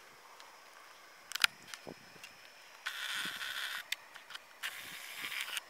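Handling noise from a handheld camera being carried around: a sharp click about one and a half seconds in, then two rustling bursts of about a second each.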